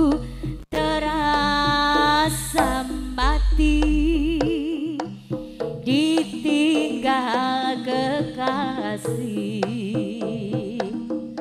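Live jaranan ensemble music through a sound system: a wavering, vibrato-laden lead melody over drum strokes and a deep bass, an instrumental stretch with no sung words.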